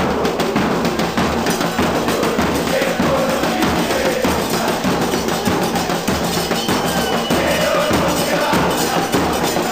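A crowd of football supporters singing a chant together over a steady beat of bass drums.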